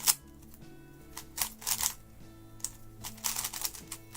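GAN 11 M magnetic 3x3 speedcube being turned by hand: short clicky swishes of layer turns in scattered bursts, over quiet background music.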